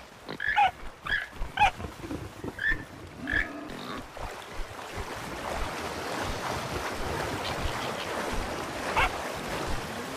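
Animal calls: about six short sharp cries in the first three and a half seconds and one more near the end, over a steady rushing noise that builds after about four seconds.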